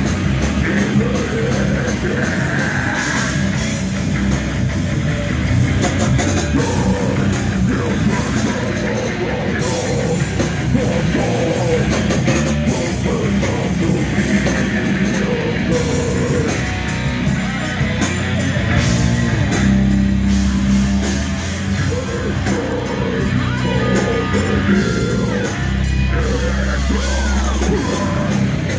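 A heavy metal band playing live and loud: distorted electric guitars and a pounding drum kit, with a vocalist singing into a microphone.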